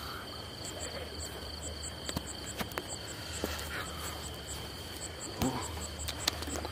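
Crickets and other insects calling, with two steady high trills and a higher chirp pulsing several times a second, plus a few faint clicks.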